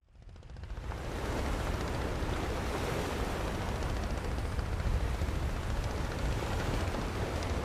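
Sea ambience of wind and surf, fading in from silence over about a second, then a steady rushing noise with a deep rumble underneath.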